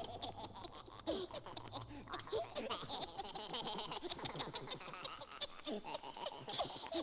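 Spooky sound-effects laughter, short gliding cackles and chuckles, over a dense steady crackle.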